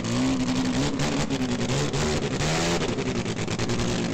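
OMC air-cooled rotary snowmobile engine running, its revs rising and falling unevenly.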